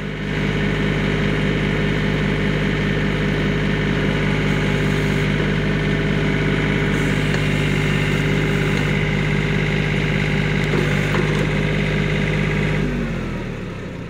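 John Deere compact tractor's diesel engine running steadily at raised throttle while it powers a backhoe digging a trench. Near the end the engine speed drops and its note falls.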